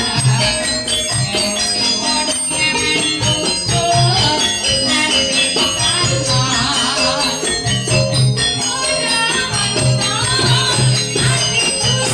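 Live Javanese campursari music for a tayub dance: an ensemble with a steady low drum pulse, jingling percussion and held instrument tones. A wavering sung melody joins about four seconds in.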